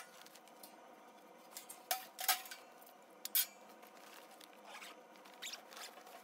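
Steel camping-stove parts clinking and knocking against each other as they are packed into a fabric carry bag, with a cluster of sharp clinks about two seconds in and another near the middle, then the bag's fabric being handled and folded.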